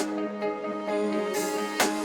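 Soft instrumental background music with held, sustained notes, and two short sharp clicks, one at the start and one near the end.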